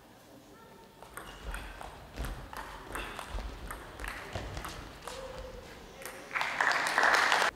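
Table tennis rally: the celluloid ball clicks off the bats and table in a quick, irregular string of hits. Near the end the point ends and loud applause breaks out.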